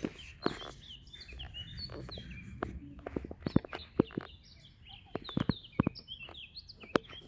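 Small birds chirping and twittering steadily in the woods, short high notes that slide up and down in pitch. Scattered sharp clicks and knocks stand out louder over the birdsong a few times.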